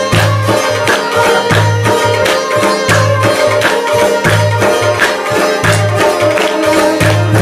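Instrumental passage of traditional South Asian folk music with a steady drum beat under sustained melodic tones.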